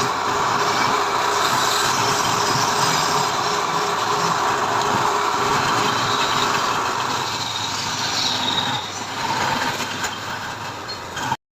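A woodworking power tool running steadily, a little quieter over the last few seconds, then cutting off abruptly.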